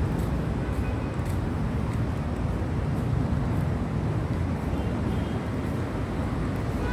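Outdoor urban background noise: a steady low rumble with no distinct events.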